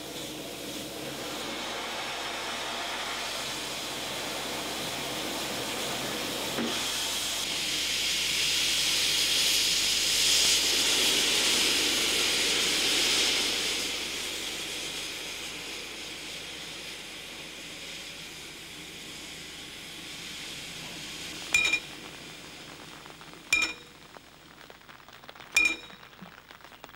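Steam hissing from the steam locomotive 042 271, swelling to its loudest around the middle and then dying away. Near the end a railway warning bell (Läutewerk) on a post strikes three times, about two seconds apart.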